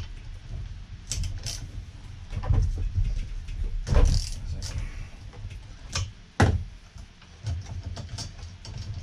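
Scattered clicks, knocks and low thuds of hand tools and hands working on a petrol hedge trimmer's engine while its spark plug is loosened with a plug socket on an extension bar. Two louder knocks come about four and six and a half seconds in.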